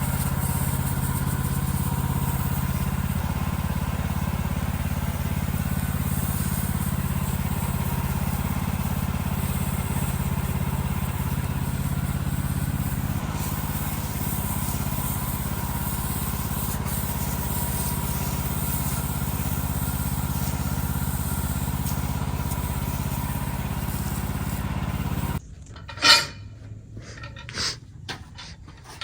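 Wood-Mizer LX55 band sawmill's engine running steadily under a steady hiss. Near the end it cuts off abruptly, giving way to a few scattered sharp knocks and clicks, one much louder than the rest.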